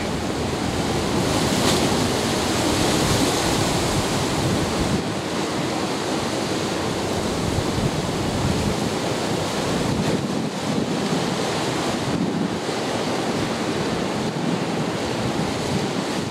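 Choppy waves and surf in a rough ocean inlet, a steady rushing of water, with wind blowing across the microphone.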